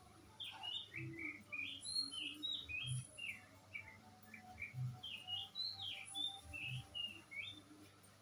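Small birds chirping over and over in quick, short high notes. A soft low thud sounds roughly every two seconds underneath.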